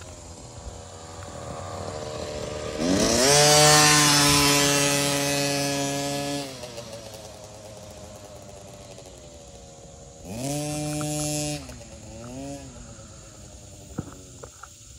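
Small mini dirt bike engine revving up, held at high revs for about three seconds, then easing off. About ten seconds in it revs up again for just over a second, with a short blip of throttle right after.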